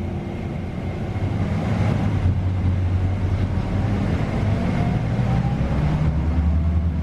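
Scania K320UA articulated city bus under way, heard from inside the cabin: a steady low drone of the diesel engine with road noise, and a faint rising whine partway through.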